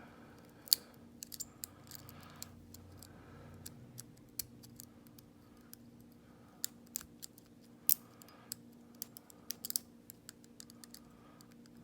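Lock pick working the pins of a small Lockwood laminated padlock under tension: irregular sharp metallic clicks and light scrapes, with two louder clicks, one near the start and one about eight seconds in. The lock has not yet opened.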